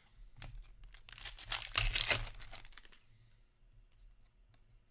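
A hand-held stack of trading cards being flicked through, card stock sliding and rustling against card. The rustle comes as one dense burst of about a second and a half, starting about a second in, with a few light clicks around it.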